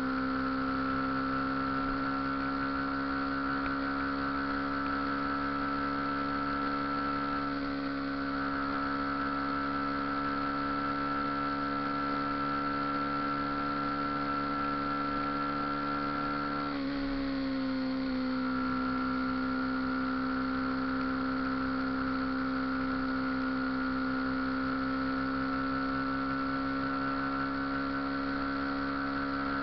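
Motorcycle engine running at a steady speed with a constant hum and a high whine above it. About 17 seconds in, the pitch drops slightly, then holds steady again.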